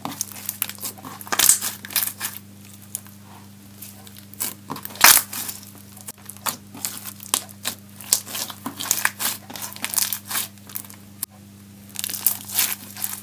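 Pink bead-filled slime being squeezed and kneaded by hand, crunching, crackling and clicking irregularly, loudest about five seconds in, over a faint steady hum.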